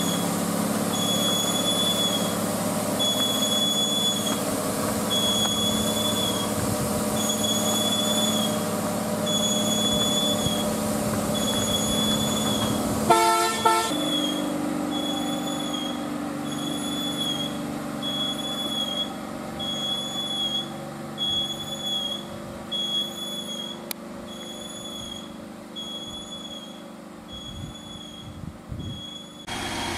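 Heavy TATA lorry's diesel engine running as it drives away, fading steadily into the distance. About 13 seconds in comes one short horn blast. Throughout, a high-pitched chirp repeats about once a second.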